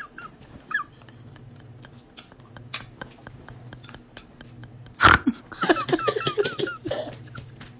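High-pitched wavering whines, like an animal's, come about a second in and again for a stretch after five seconds. Scattered sharp clicks run throughout, and a sudden loud thump comes about five seconds in.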